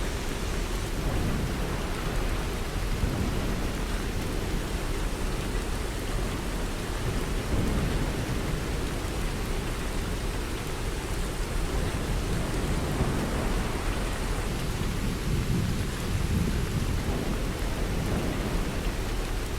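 Heavy rain falling steadily in a thunderstorm, with low rumbles of thunder swelling about eight seconds in and again near the end.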